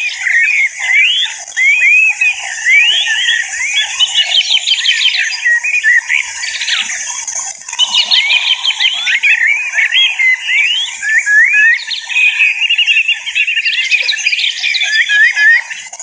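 European goldfinch song: a rapid, liquid twittering of quick rising and falling notes that goes on almost without a break, in bursts that crowd together and thin out every few seconds.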